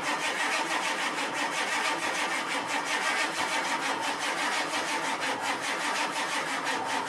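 Starter cranking the cold 1991 Ford F-250's 7.3-litre IDI V8 diesel in a steady, even rhythm, with the engine not firing. It is a failed cold start after the truck has sat for a week.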